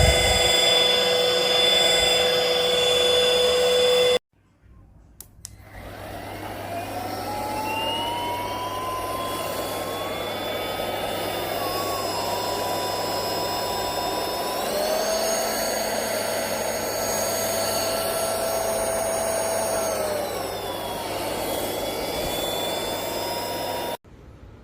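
Airbot Supersonics Aura cordless stick vacuum cleaner motor running with a steady high whine, cutting out about four seconds in. About a second later it spins up again with a rising pitch, steps up to a higher speed partway through and drops back down, then stops abruptly near the end.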